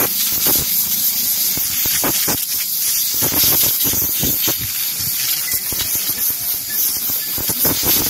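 Compressed-air blow gun hissing loudly and continuously as it blows dust out of a motorcycle's pleated paper air filter element, the hiss surging and easing as the nozzle is moved across the pleats.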